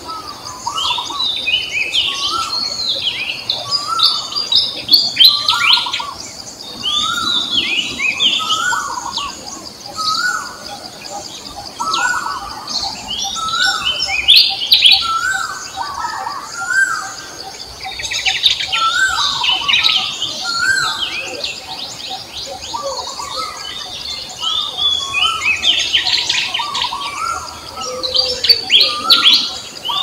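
Several birds chirping and singing together, with many short repeated phrases overlapping through the whole stretch, over a steady high-pitched hum.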